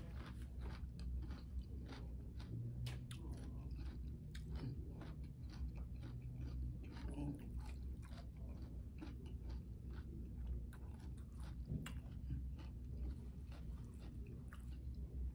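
Close chewing of a jalapeño pepper stuffed with vegan cream cheese and Takis: a steady run of many small crunchy clicks.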